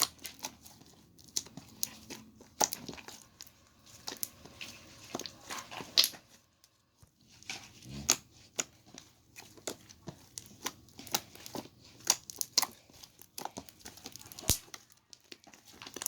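Slime being squeezed and pressed by hand, giving a run of irregular sticky clicks, pops and crackles.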